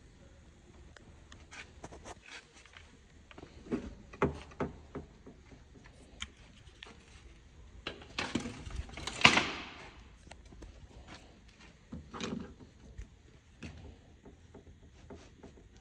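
Scattered light clicks and knocks of handling, with a louder rustling scrape about eight to ten seconds in.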